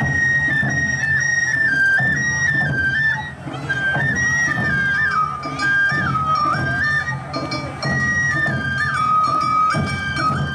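Awa Odori festival music: a Japanese bamboo flute (shinobue) plays a melody in stepped, held notes over the band's drums, settling on a long low note in the second half.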